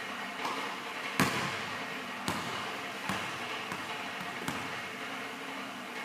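Basketball coming down after a shot and bouncing on a hardwood gym floor: one sharp, loudest hit about a second in, then five more bounces coming closer and closer together as the ball settles, each echoing in the gym.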